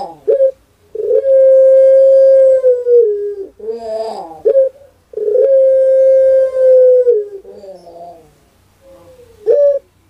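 Ringneck dove giving long, drawn-out coos: two steady held notes of about two seconds each, each sliding down in pitch at its end, with shorter wavering notes between them and a brief rising note near the end.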